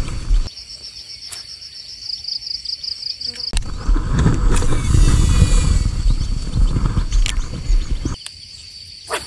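Low rumbling noise on a body-worn camera microphone as a baitcasting rod is cast and reeled, loudest for about four seconds in the middle, with a sharp click just before it. Insects shrill steadily underneath with a pulsing high note.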